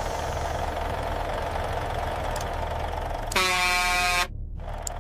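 A steady engine hum, then about three and a half seconds in a single loud vehicle horn blast lasting just under a second, cut off abruptly.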